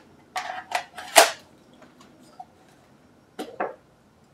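Hard plastic clicks and knocks as a DJI Phantom's flight battery is slid into the drone body and the drone is handled. The loudest click comes about a second in, with a few more near the end.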